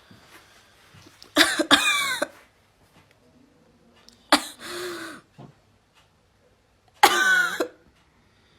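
Three loud, explosive bursts of breath from a woman, each with a short voiced tail: about a second and a half in, midway, and near the end.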